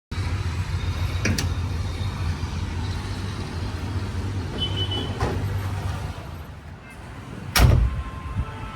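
Backhoe loader's diesel engine running with a steady low rumble that eases off about six seconds in, with a few light clanks and one loud knock about a second and a half later.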